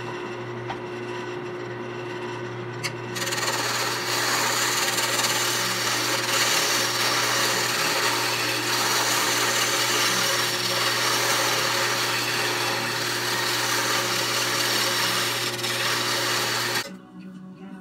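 Jet wood lathe running with a steady motor hum while a turning tool cuts the spinning old-oak bowl blank; from about three seconds in the cutting adds a loud, even scraping hiss. Both stop suddenly near the end.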